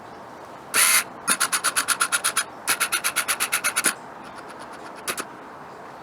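Socket ratchet clicking in rapid runs of about ten clicks a second: a short rasp first, then two runs of a little over a second each, then a fainter short run and a last click. The ratchet is being worked to tighten the bolt of a loose pit-bike flywheel.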